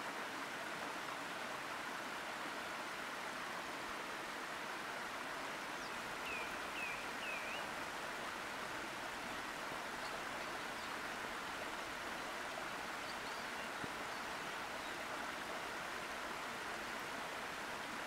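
Waterfall pouring into a pool: a steady rush of falling water. Three short high chirps come about six seconds in, and a few fainter ones follow later.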